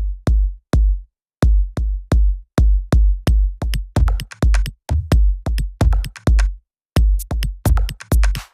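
Electronic music with a heavy, booming drum-machine kick beat, about three hits a second, with brief breaks in the beat.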